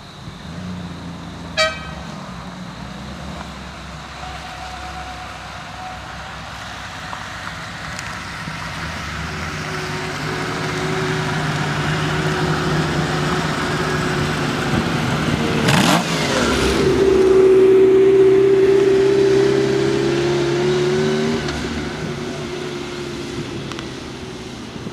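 The V12 of a Lamborghini Miura P400SV running as the car drives slowly by, growing louder to a peak about two-thirds of the way through and then fading away. A brief sharp click comes about one and a half seconds in.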